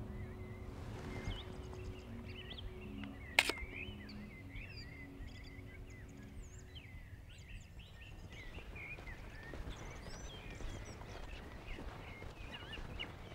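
Birds chirping and singing throughout, with one sharp click about three and a half seconds in, the loudest sound: the shutter of a Pentax 645 medium-format film camera on a tripod firing.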